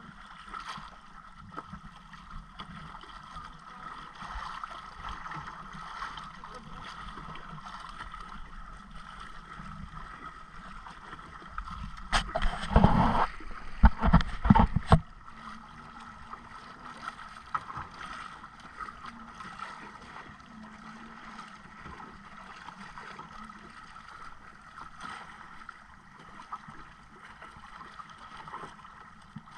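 Sea water lapping against a small outrigger boat's hull, with wind on the microphone. About twelve seconds in, a few seconds of loud splashing right beside the hull.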